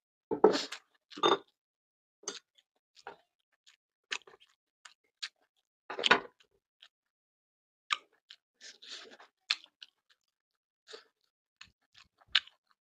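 A person chewing mouthfuls of fried tofu and rice, heard as irregular chewing and crunching with small clicks and quiet gaps between.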